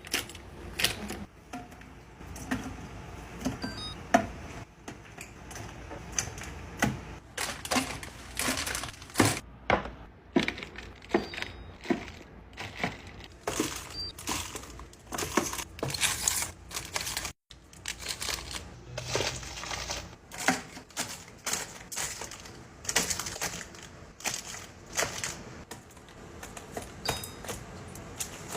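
Irregular clicks, clinks and taps of containers and packaging being handled and set down while a fridge is restocked, with some plastic crinkling between them.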